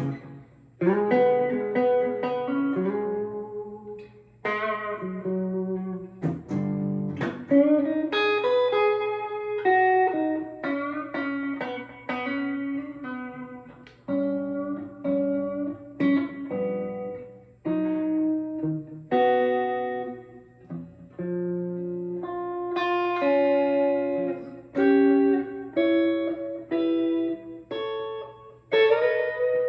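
Les Paul electric guitar playing a slow instrumental passage of chord inversions and two- and three-note chords. Each chord is plucked and left to ring, one after another every second or two, with short breaks between phrases.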